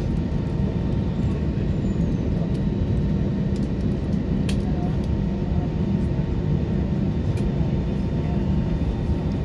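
Cabin noise of an Airbus A320 taxiing after landing: a steady low rumble from the jet engines at idle and the aircraft rolling, heard from inside the cabin.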